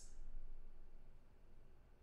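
Quiet room tone: a low hum and faint background hiss, with no distinct sounds, easing down slightly over the two seconds.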